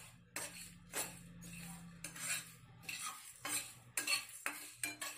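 A utensil stirring and scraping dry whole spices (cumin, coriander seeds, fennel, cloves, peppercorns and dried red chillies) around a nonstick kadai as they dry-roast. The strokes come quick and irregular, about two a second, over a low steady hum.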